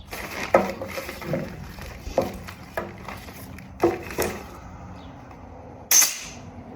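Tools and metal parts being handled in a workshop, making a handful of separate knocks and clatters, then a brief, louder rasping burst about six seconds in.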